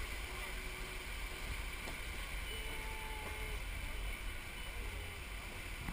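Steady rumbling and rushing noise of a moving open-air train car, with wind buffeting the microphone.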